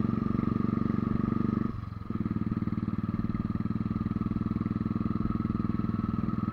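Motorcycle engine running steadily under load on a climb, its rapid even firing pulses heard close up. The engine briefly drops in level about two seconds in, then picks up again.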